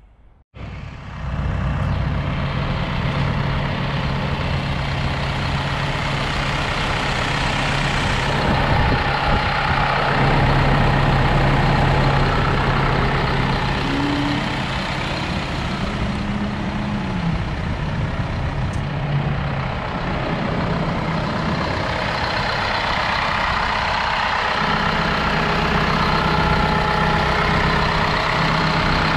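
2016 Isuzu NRR's four-cylinder turbodiesel idling steadily, heard close up over the open engine bay.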